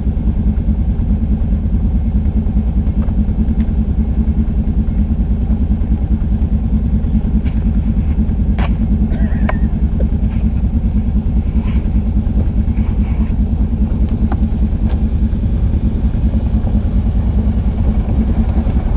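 ATV (quad) engine running steadily and low, with no revving, plus a few light clicks and knocks in the middle.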